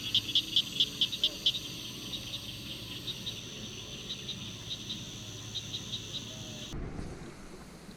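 Insects chirping in a steady chorus, most likely crickets. A run of loud chirps at about five a second over the first second and a half gives way to softer, sparser chirps. The chorus cuts off abruptly near the end.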